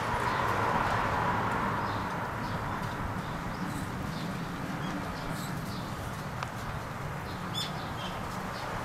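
Outdoor background with small birds chirping now and then: scattered short, high chirps from about three and a half seconds in, the clearest near the end, over a steady rushing hiss that eases a little in the first couple of seconds.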